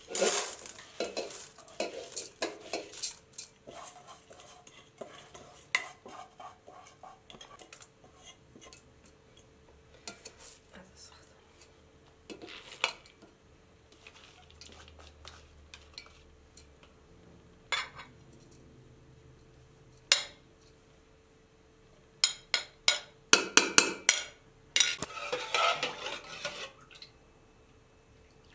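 Dry grains poured into a steel cooking pot with a brief rattling rush, followed by scattered clinks of utensils on metal pots. Near the end a ladle clanks and scrapes repeatedly against a steel pot.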